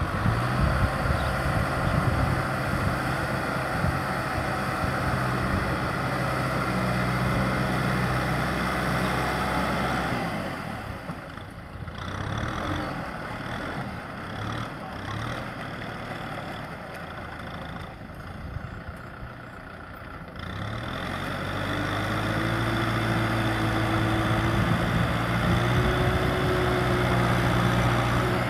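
Kubota tractor's diesel engine running steadily while it drives a rotary tiller through a flooded rice paddy. The sound fades for about ten seconds midway as the tractor moves farther off, then grows louder again as it comes back.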